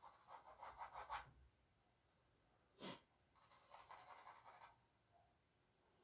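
Faint scratching of a charcoal stick on canvas in quick, short back-and-forth shading strokes, in two bursts of a second or so each. Between them comes one short soft hiss.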